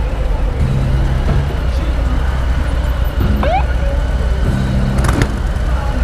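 Motorcycle engines rumbling low and steady, with the note swelling in short pulses several times. A brief rising squeak comes about three and a half seconds in.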